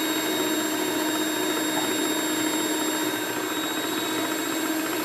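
Electric mixer running steadily with a constant hum, its beaters whipping egg whites toward stiff peaks.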